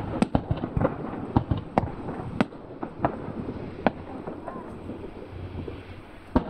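Aerial fireworks bursting: a quick run of sharp bangs and crackles that thins out over the first couple of seconds, a quieter stretch, then another loud bang near the end.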